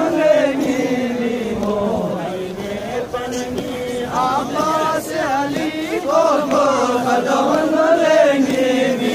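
A group of men chanting a Shia mourning lament (noha) together, many voices singing one rising and falling line.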